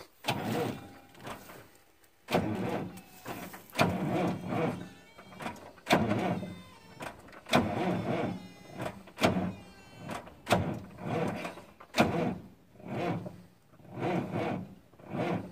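Freightliner FLD120 truck's diesel engine cranking slowly on its starter without catching, in an uneven pulse of about one and a half beats a second. The engine doesn't like to turn over after standing for 17 years.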